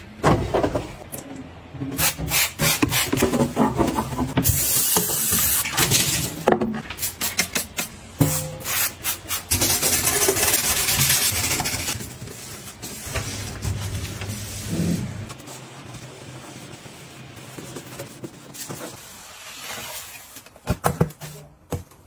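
A cloth scrubbing a greasy stainless-steel gas stovetop in repeated rubbing strokes, with scattered clicks and knocks from the metal burner parts.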